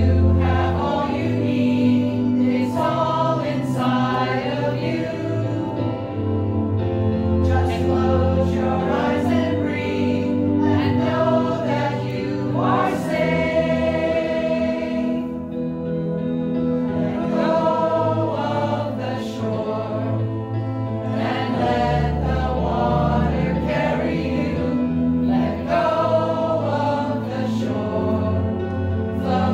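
Small mixed choir of men's and women's voices singing together in parts.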